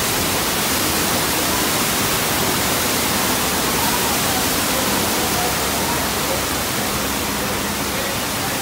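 A large torrent of water from a staged flood effect pouring down and surging across a set floor, making a loud, steady rush of water that does not break.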